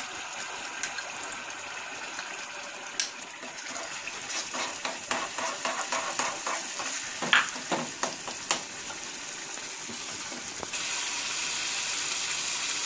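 Ground red chilli chutney paste sizzling in hot oil in a steel kadai, with a spoon scraping and clinking against the pan as it is stirred. Near the end the sizzle becomes a louder, steadier hiss.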